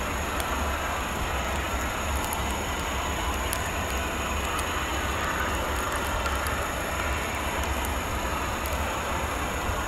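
Steady drone of jet aircraft on an airport apron, even throughout, with a strong low rumble underneath and a thin steady high whine.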